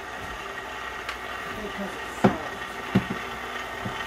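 KitchenAid Artisan tilt-head stand mixer running at low speed, its flat beater turning flour into sourdough bread dough, with a steady motor hum. A few sharp knocks cut in, the two loudest about two and three seconds in.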